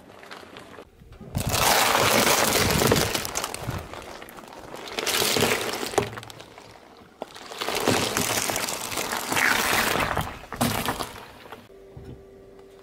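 Car tyre rolling over and crushing objects on asphalt: several one-to-two-second bursts of cracking and crunching, among them eggs in a tray breaking under the wheel.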